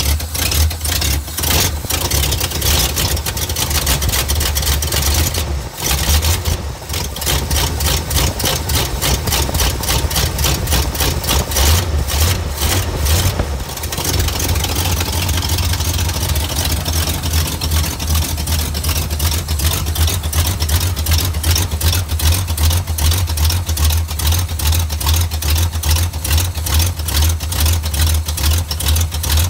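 Oldsmobile 403 V8 idling through a four-barrel carburettor. The note wavers and dips a couple of times in the first half, then settles to a steady, even idle.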